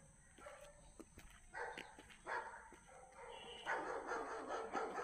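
A dog barking in short bursts, then a longer run of barks near the end.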